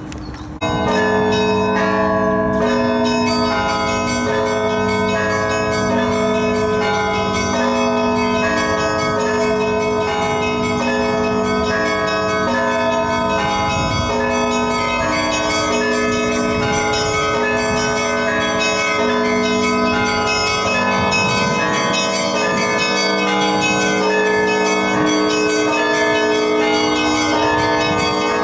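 Russian Orthodox church bells ringing: several bells of different pitches struck repeatedly in a continuous peal, starting abruptly about half a second in.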